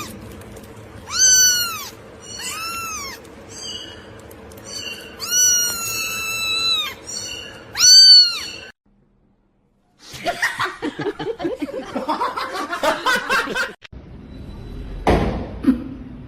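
A cat meowing about five times, each meow rising and falling in pitch, one of them long and drawn out. After a second of silence, a stretch of mixed, noisy sound follows.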